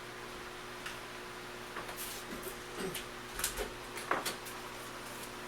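Steady low hum with a few faint steady tones, with a scattering of light clicks and knocks about two to four seconds in.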